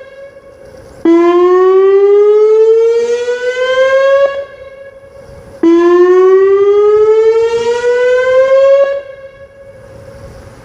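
Whelen WPS 2909 electronic outdoor warning siren sounding a test signal: a loud tone rich in overtones starts abruptly and glides slowly upward for about three seconds, then drops away. This happens twice, with a fainter steady tone hanging on between the sweeps and fading near the end.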